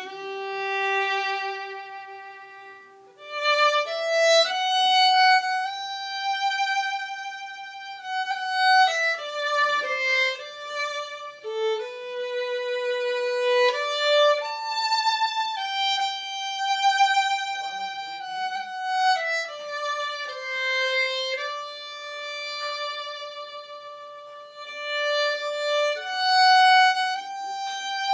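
Solo violin, a Guarneri-model instrument, playing a slow lyrical melody of long held bowed notes that step up and down, with a full, rich tone.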